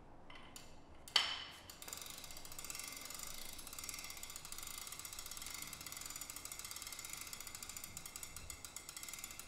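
Hand-wound spring starter on a diesel engine being wound up: its ratchet pawl clicks rapidly and continuously as the handle is cranked to tension the power spring. A single sharp click comes about a second in.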